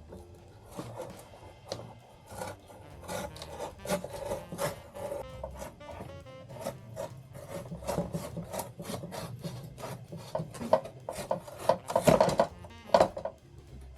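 Cardboard being cut and worked in quick, repeated rasping strokes, with background music underneath.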